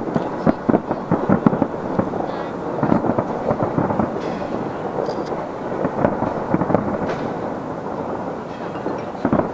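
Fireworks fired from the Taipei 101 skyscraper bursting in rapid, overlapping bangs and crackles, heard far off and dulled by the distance. A cluster of sharper bangs comes in the first second or so, and another near the end.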